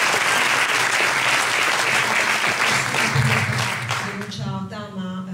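Audience applauding in a hall, the clapping dying away about four seconds in as a voice starts.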